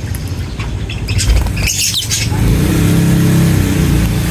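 Lovebirds chirping and squawking in short, high bursts, busiest in the first half. A low, steady drone comes in over the last two seconds and becomes the loudest sound.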